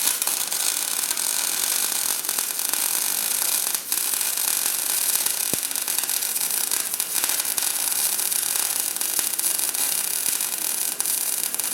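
MIG welder arc crackling and hissing steadily as a weld bead is run, with a brief break about four seconds in.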